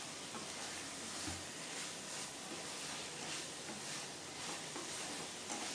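Chicken seekh kebabs in spiced masala and oil sizzling softly and steadily in a pan.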